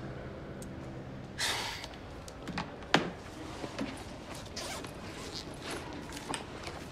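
Quiet handling sounds in a small room: a held music note fades out, a short breathy sigh comes about a second and a half in, then a sharp click and scattered faint clicks and rustles.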